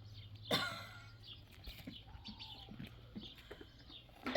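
A person coughs once, sharply, about half a second in.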